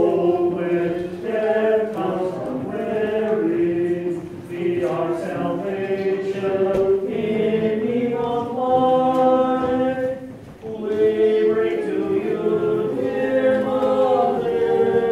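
A group of voices singing Byzantine-rite liturgical chant unaccompanied, in sustained phrases with short breaks between them.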